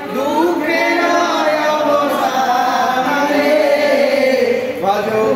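A group of voices singing a devotional chant (kirtan), a man's voice leading, in long drawn-out phrases with a short break just before the end.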